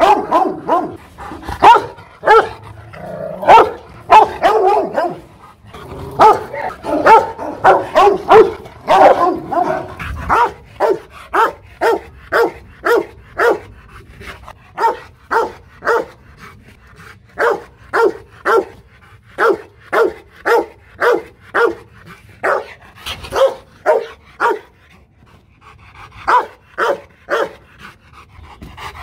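Rottweiler barking over and over: a quick, crowded run of barks for about the first ten seconds, then single barks at a steady pace of about one and a half a second, with a short pause near the end.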